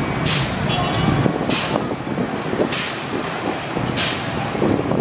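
Fire trucks' engines running, with a short sharp hiss repeating about every second and a quarter, four times.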